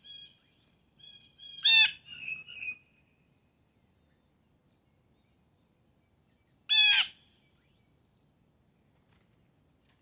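Blue jay giving two short, harsh calls about five seconds apart, with a few fainter, thinner chirps around the first.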